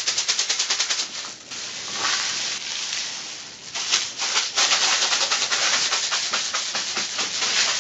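Homemade paper rain sticks, made of cardboard toilet-roll tubes, shaken and tipped so the dry filling inside rattles and pours. About a second of quick shakes, several a second, gives way to long rushing pours with short breaks between.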